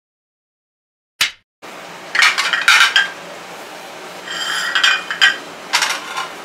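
Silent for about a second, then a brief sweep-like sound effect. After that, glass plates clink against each other and the hard floor as they are set down one by one, several sharp clinks over a steady room background.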